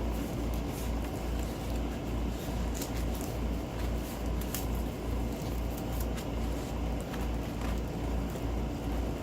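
A steady low hum pulsing about twice a second, like a fan or appliance running, under scattered light clicks and crinkles from handling a stiff diamond-painting canvas and its packaging.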